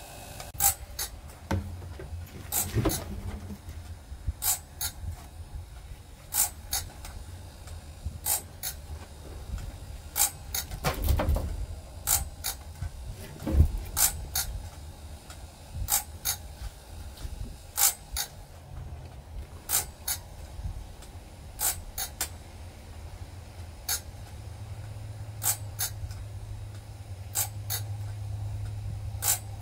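Wood-Mizer BMS250 bandsaw blade sharpener running through its grinding cycle: a steady motor hum with sharp mechanical clicks about once or twice a second as the grinding head and indexing mechanism work the blade tooth by tooth. The hum grows louder near the end.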